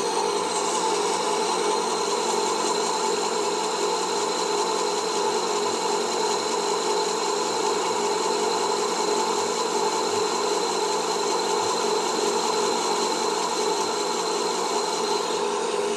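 Metal lathe facing the end of an aluminium cylinder: the spindle runs steadily with a constant whine while the cutting tool shaves off curled chips.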